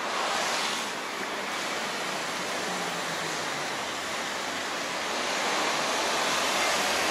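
Steady hiss of road traffic: cars passing on a city street, growing louder near the end as another vehicle approaches.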